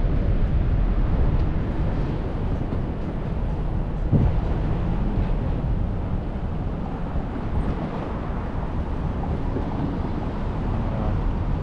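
Steady low rumble with wind on the microphone while riding along the rail tracks, with a single knock about four seconds in.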